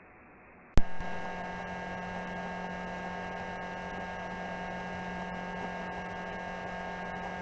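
A single sharp click, then a steady electrical hum of several unchanging tones.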